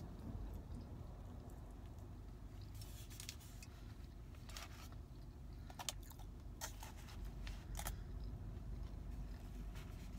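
Someone chewing a mouthful of taco, with several short crackles between about three and eight seconds in, over a low steady hum.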